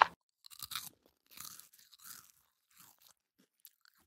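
A person chewing soft dessert close to the microphone: irregular, soft crunching and wet mouth sounds in short bursts. A sharp click opens it.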